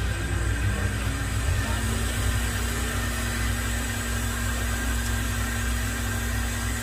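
Hot air rework station blowing steadily over the reballing stencil, an even hiss with a low hum, heating the solder balls onto the chip.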